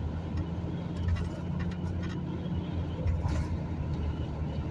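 Vehicle driving at highway speed: a steady low engine and road-noise drone, with a few light ticks about a second in and again past three seconds.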